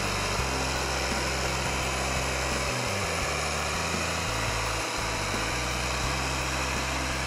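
Case IH MX305 tractor's six-cylinder diesel engine running steadily as the tractor drives slowly past.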